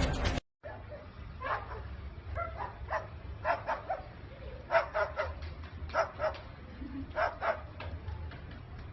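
A dog giving short barks, often two in quick succession, a dozen or so over several seconds, over a low background hum.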